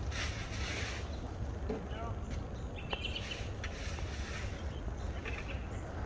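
Steady low rumble of outdoor background noise, with faint distant voices and a few brief high-pitched chirps about three seconds in.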